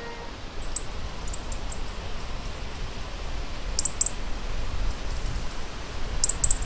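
A low, steady outdoor rumble, with a few brief, very high, thin songbird calls in short clusters: about a second in, around four seconds, and again near the end.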